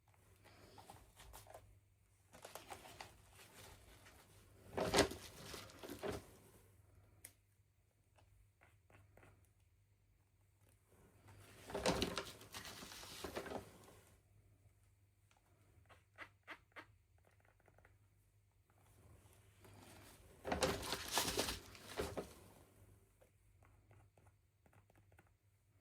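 Packaging being handled and opened by hand: three bursts of crinkling and tearing, with a few small clicks in between.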